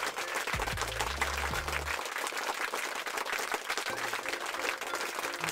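Applause, a dense crackle of many hands clapping, over background music whose bass line drops out about two seconds in and comes back briefly near four seconds.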